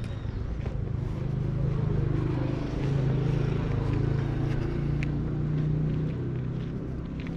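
A motor vehicle's engine hum passing on the street, swelling about a second and a half in and easing off near the end, with light footstep taps on top.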